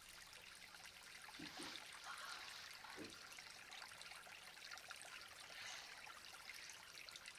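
Faint steady trickling of running water, with a couple of soft low thuds about one and a half and three seconds in.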